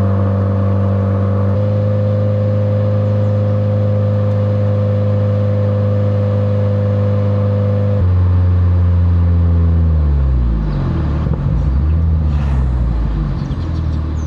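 A Subaru WRX's turbocharged flat-four engine drones at a steady cruise. About eight seconds in, its pitch falls steadily as the car slows, settling into a lower, uneven drone.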